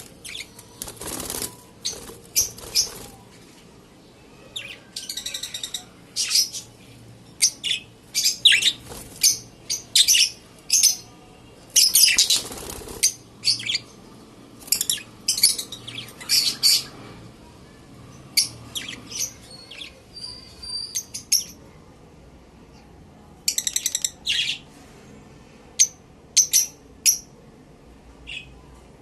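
Lovebirds chirping in short, sharp, high calls, often in quick runs of several. A couple of broader rustling sounds come about a second in and again near the middle.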